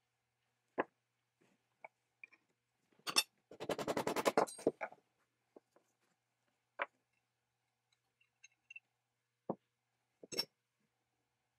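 Scattered knocks and clicks of the old split wooden crank handle being worked off its iron spindle and set down on a wooden workbench, with a quick clatter of rapid taps about three and a half seconds in.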